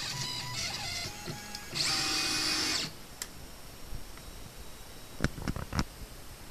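Stepper motors of a homemade CNC machine whining at changing pitches as the axes move, then a louder, faster move about two seconds in that stops abruptly just before three seconds. A few light knocks follow near the end.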